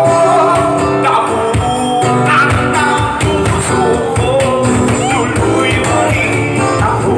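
Live acoustic band playing: a woman singing a melody over strummed acoustic guitar and a steady cajón beat.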